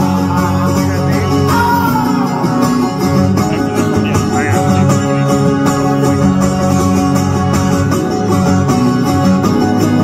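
Steel-string acoustic guitar strummed hard and fast in an instrumental break of a live folk song, with a few brief wordless vocal sounds in the first half.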